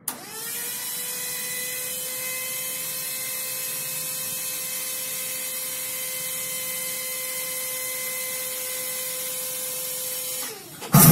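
A steady, even-pitched motor whine over a hiss. It spins up in the first half-second, holds, and winds down near the end.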